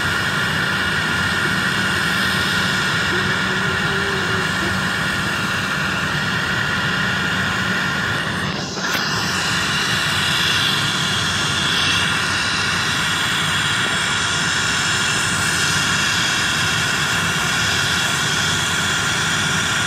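Jet engine noise across an airport apron: a steady loud hiss with several high whining tones, dipping briefly about halfway through.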